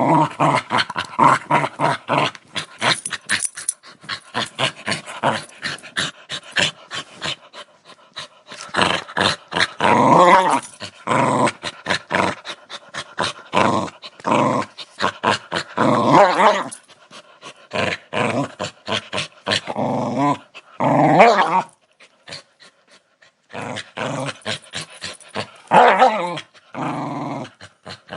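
Dog growling: a rough, rapidly pulsing growl that swells louder several times, with a short pause about two-thirds of the way through.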